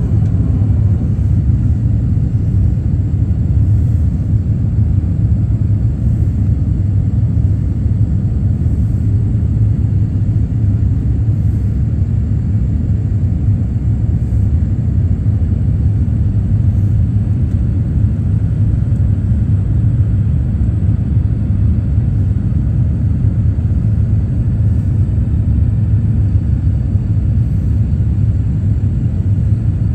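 Jet airliner cabin noise heard from a window seat over the wing: a steady low rumble of engines and airflow during the descent on approach to land.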